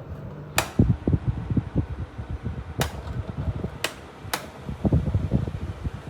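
National Windy Mate F-ER302 box fan running, its airflow buffeting the microphone in irregular low thumps, with four sharp clicks spread through the middle.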